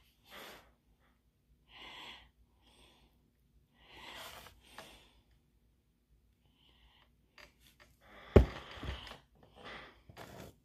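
Quiet, scattered handling and rustling of a plastic glue bottle and wooden clothespins, with one sharp knock a little over eight seconds in, the loudest sound.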